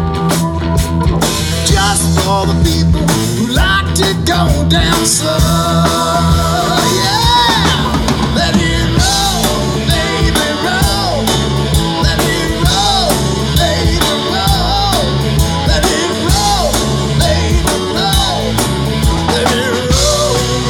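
Live rock band playing, with electric guitars over a steady drum-kit beat.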